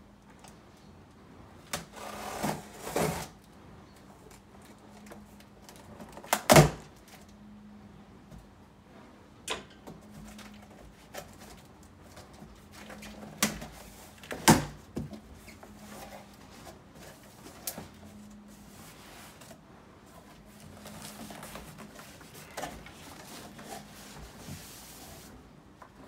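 A PC case's cardboard shipping box being unpacked: scissors slitting the packing tape with a short rasp, then scattered handling clicks and two loud knocks against the cardboard. Near the end the flaps are folded back and the foam-packed case in its plastic bag rustles.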